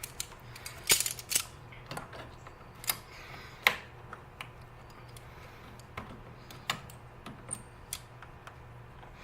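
Irregular sharp clicks and light knocks of hoses, clamps and a plastic coolant reservoir being worked loose by hand, louder in the first half and fainter later.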